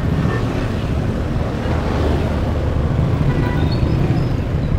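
A Yamaha FZ V3's single-cylinder motorcycle engine running steadily at low speed in slow, congested traffic, with the noise of other vehicles close around it.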